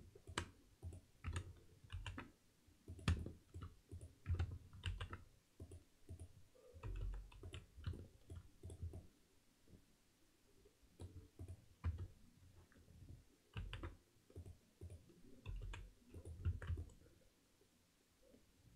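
Faint, irregular clicking of a computer mouse and keyboard keys being pressed, many clicks with a soft low thud.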